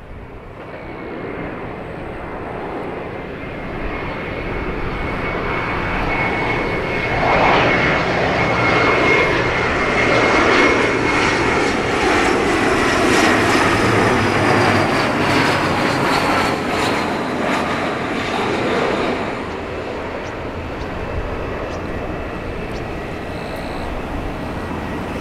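J-AIR Embraer E170's twin GE CF34 turbofans on short final to land, a jet roar with a steady high whine. It builds over the first several seconds, stays loudest through the middle as the jet nears, and eases off a little after about twenty seconds as it flares over the runway.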